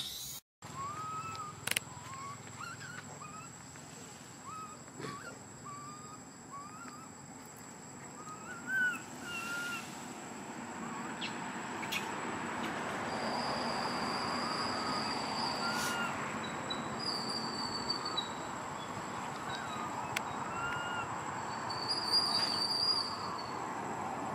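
Short, high, rising chirp-like animal calls repeated at irregular intervals, over a thin steady high-pitched whine. A hiss grows louder from about ten seconds in.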